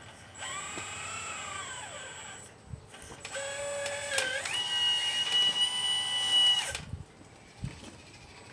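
Electric motor whine from a 1/12 scale Liebherr 954 RC excavator, in two runs. The first lasts about two seconds and rises then falls in pitch. The second runs about three seconds, steps up in pitch partway through, then holds steady until it cuts off.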